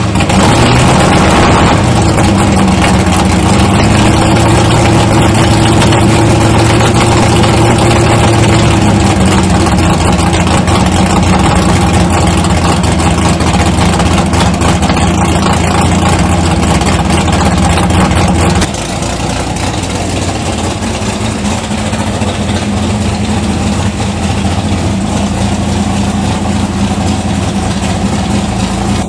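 Big-block Chevy V8 in a 1981 Malibu drag car running at idle, with the engine note wavering slightly in the first several seconds. About two-thirds of the way in the sound drops in level and carries on as a steadier idle.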